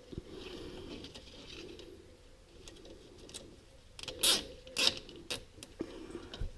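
Nylon zip tie being cinched around wiring: quiet handling of the wires at first, then, about four seconds in, a few short sharp ratcheting zips and clicks as the tie is pulled tight.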